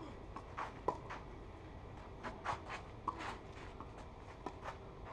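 Tennis rally on a clay court: sharp pops of the racket hitting the ball about a second in and again about three seconds in, with scratchy scuffs of shoes sliding on the clay between strikes.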